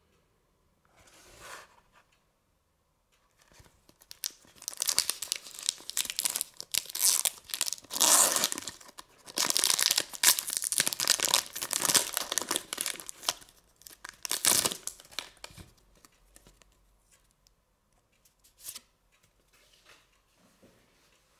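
Foil wrapper of a Pokémon trading card booster pack crinkling and tearing open, with the cards being pulled out. After a short rustle, dense ripping and crackling starts about four seconds in and runs for about ten seconds, then dies down to a few light rustles.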